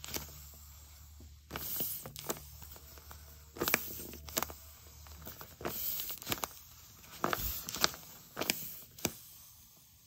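Plastic wrapper of a squishy toy crinkling and rustling as hands work at it, in short, irregular bursts.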